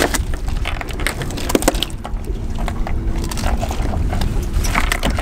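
Steady low rumble of a fishing boat at sea, with a faint even hum and scattered light knocks and clicks on deck.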